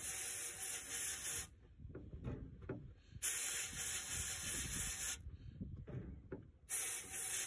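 Sandblasting gun in a blast cabinet, blasting grit at a wooden threaded screw. It hisses in three bursts, with short pauses of quieter low rattling between them.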